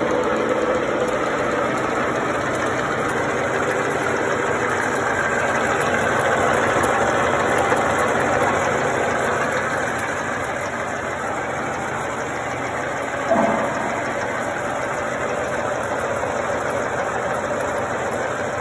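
Hitachi Seiki milling machine running, a steady mechanical hum and whir from its motor and gearing, with one short knock about two-thirds of the way through.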